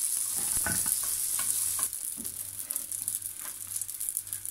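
Beignet dough frying in hot oil in a pan: a steady, high sizzle that drops in loudness about two seconds in. A few light clicks of a metal spoon against the pan come while the oil is being spooned over the dough.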